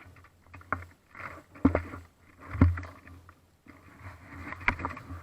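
Rustling and handling noise close to the microphone, with four sharp knocks.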